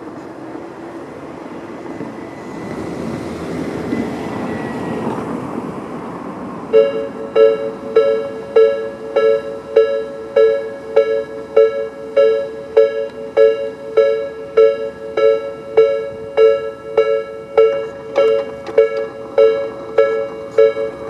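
Level-crossing warning alarm starting about a third of the way in: an electronic two-tone bell struck steadily, a little under twice a second. It is the slow-tempo version of the Tobu 'B' crossing sound. Before it starts, a broad rush of noise swells and fades.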